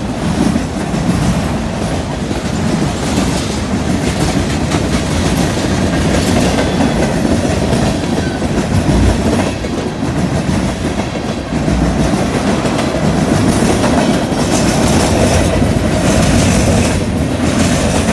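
Freight train cars rolling past close by: steady, loud rumble and rattle of steel wheels on the rails.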